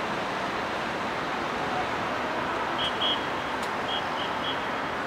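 Steady traffic noise of cars and trucks driving off a ferry's stern ramp onto the quay, a continuous even wash of engines and tyres. A few short high-pitched pips come about three seconds in.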